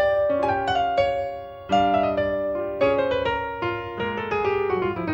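Solo piano music: notes and chords struck about once a second, with a falling run of notes near the end.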